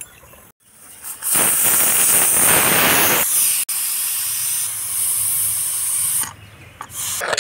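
Aluminium pressure cooker venting steam with a loud hiss as its weight valve is lifted, letting out the pressure so the lid can be opened. The hiss starts about a second in and is fullest for about two seconds. It then carries on thinner and higher for a few seconds, with one more short burst near the end.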